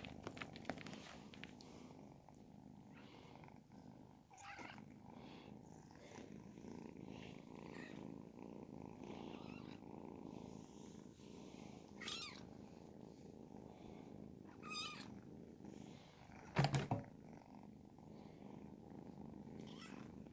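Ragdoll kitten purring steadily while being stroked, with a few faint short rustles and one louder brief knock about three quarters of the way through.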